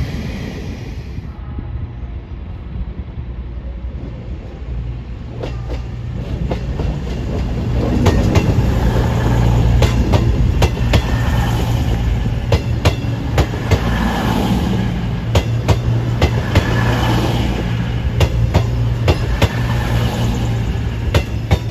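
CrossCountry Class 221 Super Voyager diesel multiple unit passing close by, its underfloor diesel engines running with a steady low drone and its wheels clicking over the rail joints. It grows louder about eight seconds in as the carriages run past.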